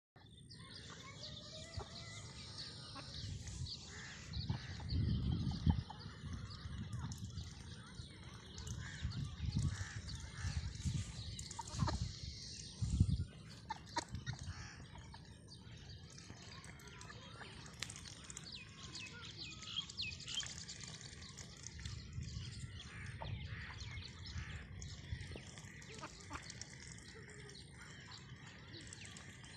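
A flock of domestic ducks calling, mixed with many short high chirps and calls. A few louder low rumbles come in the first half.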